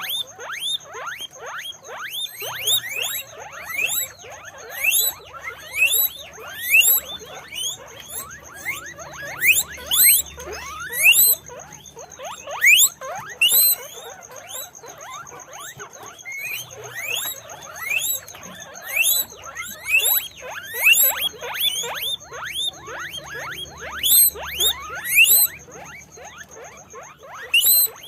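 Guinea pigs wheeking: a rapid, continuous stream of short squeaks that each sweep upward in pitch, several a second and often overlapping. A steady high-pitched whine runs underneath.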